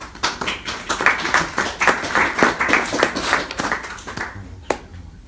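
Small audience applauding at the end of a poem, a dense patter of clapping that dies away after about four seconds; a single sharp click follows near the end.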